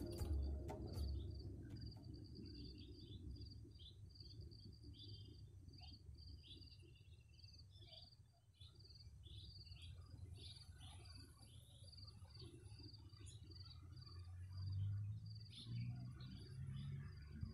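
Faint rural ambience: rapid, short high-pitched chirps repeating throughout over a low rumble. Background music fades out in the first second.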